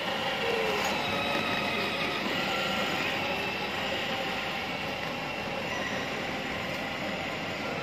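Battery-powered ride-on toy jeep driving, its electric motor and gearbox whining steadily as its plastic wheels roll over a hard stone floor.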